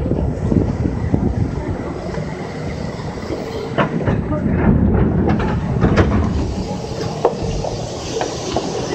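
Cabin running noise of a Kintetsu Minami-Osaka Line local train: a steady low rumble with faint hum tones, and irregular sharp clacks of the wheels over rail joints, clustered a few seconds in.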